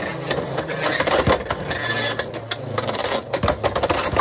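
Two Beyblade X spinning tops whirring and scraping across a plastic stadium floor, with many sharp clacks as they strike each other and the stadium wall.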